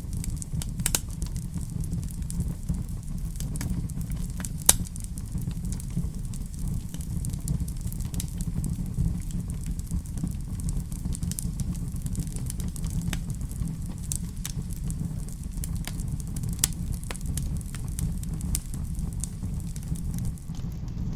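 Fireplace fire crackling, with scattered sharp pops over a steady low rumble; the loudest pop comes a little under five seconds in.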